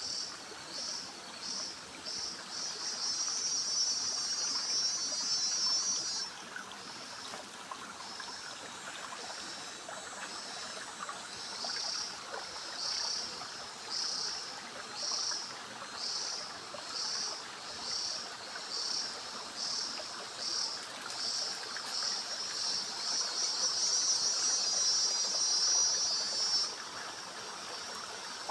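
A cicada calling in high, buzzing pulses that quicken into a long continuous buzz and then cut off suddenly. This happens twice: the first buzz comes a few seconds in, the second near the end. Underneath is the steady rush of a forest stream.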